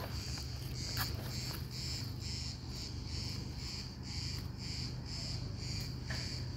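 Cricket chirping in a steady rhythm, about two chirps a second, over a steady low rumble, with a brief click about a second in.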